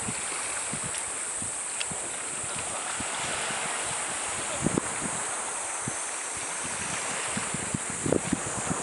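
Outdoor wind and sea noise, a steady hiss with wind buffeting the microphone in low thumps, heaviest about four and a half seconds in and near the end.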